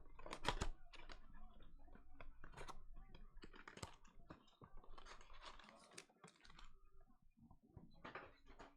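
A blaster box of basketball trading cards being opened by hand: a busy run of irregular crinkling, rustling and clicking of plastic wrap and cardboard, loudest about half a second in.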